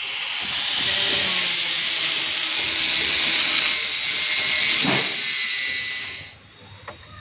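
Angle grinder's abrasive disc cutting an old galvanized iron water pipe, a loud steady hiss that stops suddenly about six seconds in. A couple of light clicks follow near the end.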